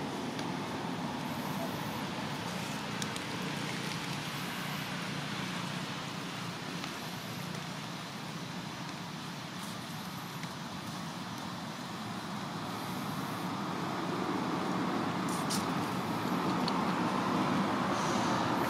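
Steady rumble and hiss of road traffic, growing louder over the last few seconds.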